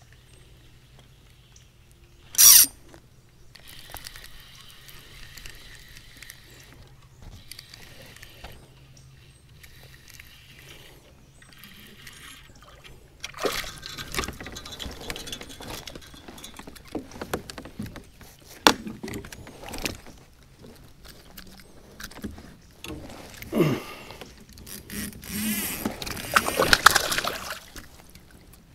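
Water splashing and handling sounds around a fishing kayak as a spinning rod is cast and reeled. A small smallmouth bass splashes as it is brought to the boat and lifted from the water, the loudest part near the end.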